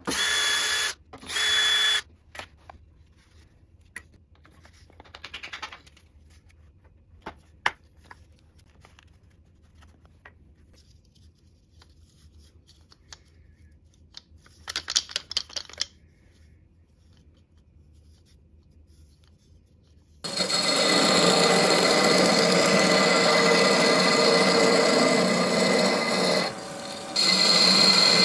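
A cordless drill-driver runs in short bursts for about two seconds, driving screws into a lathe faceplate. Then come a few light clicks and a brief rattle as a carved wooden ball with loose inner rings is handled. About twenty seconds in, a wood lathe starts cutting a spinning wooden sphere, with shavings flying: a loud, steady cutting noise that dips briefly near the end.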